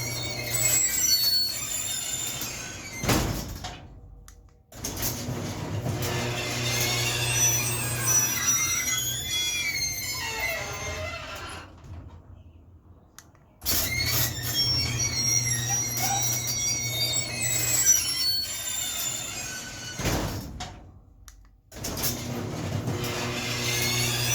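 Craftsman garage door opener running the door through its travel: a steady motor hum with squealing from the moving door, stopping for short pauses before running again. The opener now answers the remote with its light on, the replaced control-board capacitor having cured the fault.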